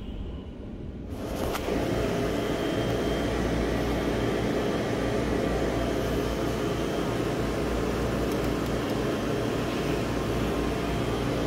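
Steady whir and hum of the refrigeration fans and compressor of an ice cream display freezer, starting suddenly about a second in and holding at an even level. Before that, the quieter low rumble of a parked car's interior.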